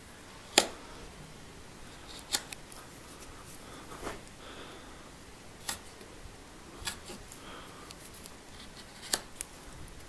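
A knife blade cutting through leather against a bench: a series of short, sharp clicks and snips, about seven of them spread out, the first the loudest and two close together near the end.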